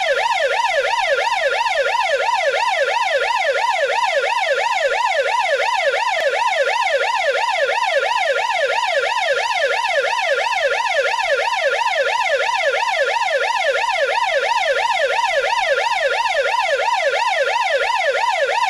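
Police siren in yelp mode: a tone sweeping rapidly up and down, about four times a second, without a break.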